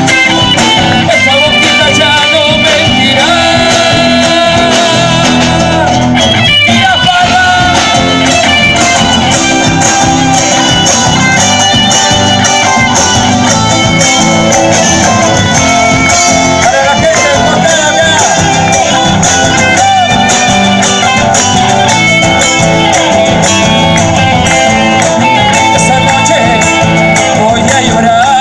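Loud, continuous music with guitar and singing.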